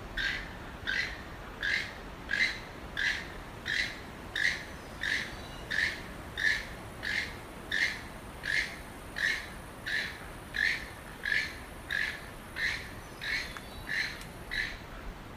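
Keel-billed toucan calling: a long, steady series of short, harsh calls, about three every two seconds, that stops shortly before the end.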